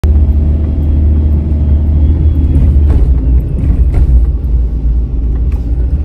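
A car driving, heard from inside the cabin with a side window open: a loud, steady low rumble of road and wind noise.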